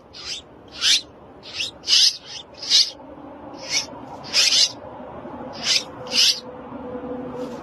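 Nestling birds giving short, harsh begging calls, about ten in quick irregular succession, as they are fed.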